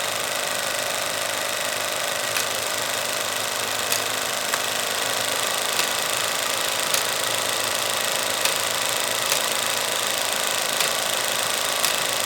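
Film projector running steadily with an even mechanical whir, with faint sharp clicks at uneven intervals of about a second or so.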